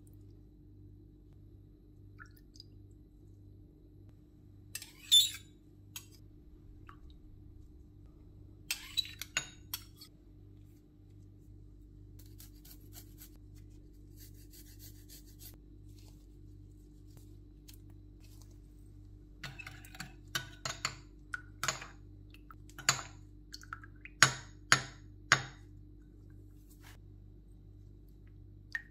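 Kitchen prep noises: scattered short knocks and clatter of utensils and dishes over a steady low hum. They come once about five seconds in, in a small cluster around nine seconds, and in a busier run between about twenty and twenty-five seconds.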